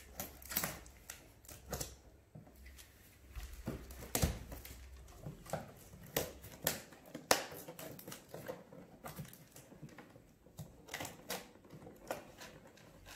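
A blade cutting along the packing tape on the top seam of a cardboard box, a string of irregular scratching and ticking strokes as it slices the tape and scrapes the cardboard.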